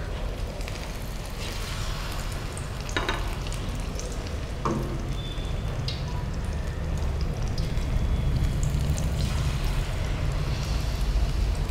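Batter-coated vegetable pieces deep-frying in hot oil in a stainless steel pan, sizzling and bubbling steadily, a little louder in the second half. Two sharp clicks stand out, about three and four and a half seconds in.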